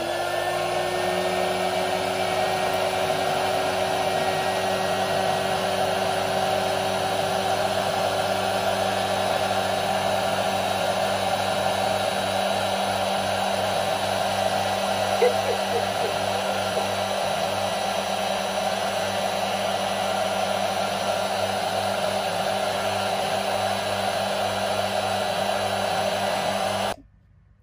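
Small craft heat gun (embossing gun) running, a loud steady rush of blown air over a steady motor hum. Its pitch rises briefly as the motor comes up to speed at the start, and the sound cuts off abruptly near the end.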